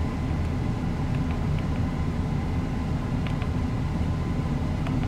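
Steady low rumble of the VW Passat idling, heard from inside the cabin, with a few faint, short clicks from the diagnostic scanner's buttons being pressed.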